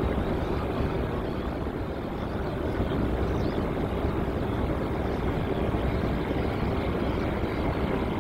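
Steady aircraft engine noise: a constant roar with an even mid-pitched hum running through it.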